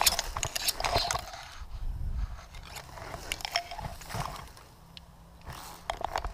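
Long dry grass rustling, scraping and crackling right against the microphone as a prone person shifts through it. The crackles come in irregular bursts, busiest in the first second or so, then sparser.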